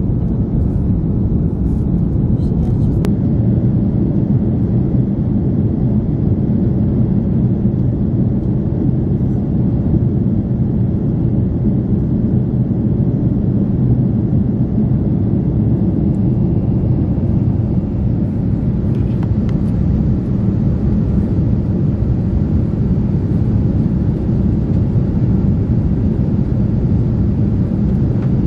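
Steady cabin noise of an Airbus A330-300 in its climb after takeoff: an even, low rumble of engines and airflow heard from inside the cabin.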